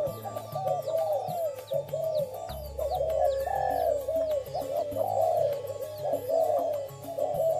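Spotted doves (tekukur) cooing over and over in a continuous run of arching calls, with faint high bird chirps above and music underneath.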